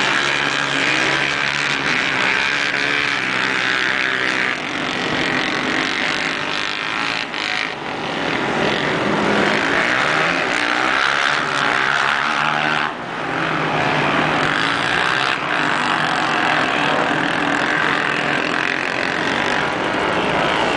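Several two-wheel-drive race quads (ATVs) running hard on an ice track, their engines revving up and down in pitch as they race past.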